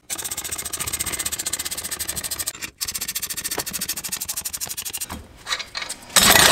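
Ratchet wrench clicking rapidly and evenly as it winds nuts back along the threaded rods of a homemade strut spring compressor, letting the tension off a front strut's coil spring. The clicking breaks off briefly just before three seconds in, stops about five seconds in, and a loud metallic clatter follows near the end as the compressor comes apart.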